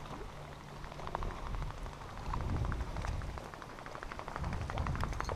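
Small waves lapping and splashing close by, a patter of little crackling splashes, over a pulsing low rumble of wind on the microphone.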